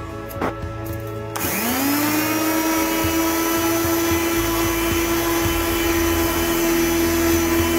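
An electric power tool with a flap sanding wheel spins up about a second and a half in, its whine rising quickly and then holding steady as it sands old paint off the pipe wrench handle.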